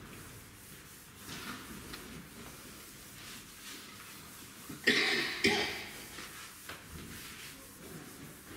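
Two coughs about half a second apart near the middle, over faint tapping and scratching of chalk writing on a blackboard.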